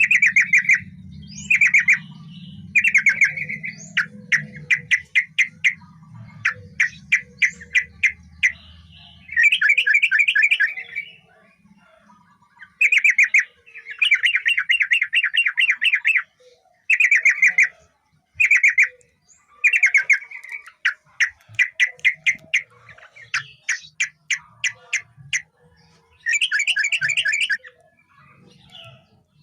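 Yellow-vented bulbul (trucukan) singing: a run of short, bubbly chattering phrases, each a quick string of notes lasting one to two seconds, repeated with brief pauses between them.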